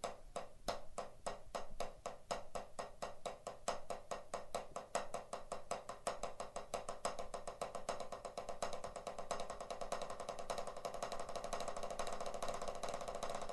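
Drumsticks playing paradiddle-diddles (right, left, right, right, left, left) on a drum practice pad: an even stream of dry strokes that speeds up steadily from a moderate pace to fast.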